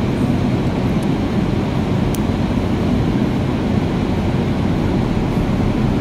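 A steady low rumble, with a faint click about two seconds in.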